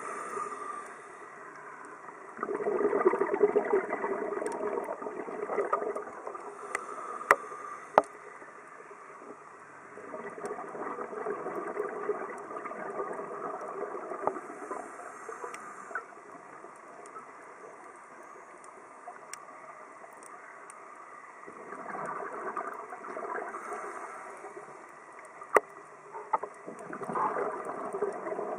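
Scuba diver breathing underwater through a regulator: four long rushes of exhaled bubbles several seconds apart, with quieter stretches between. A few sharp knocks of something hard bumping fall among them.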